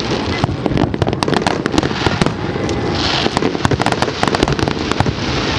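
Fireworks display going off in a dense, continuous barrage of rapid cracks and bangs over a steady rumble, with a brief burst of crackling about three seconds in.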